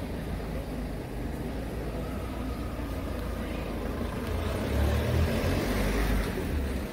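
City street traffic noise, with a vehicle passing close by and growing louder about two-thirds of the way through.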